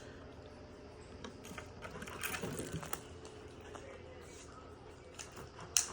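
Light scattered clicks and taps of small objects being handled, with one sharper click near the end.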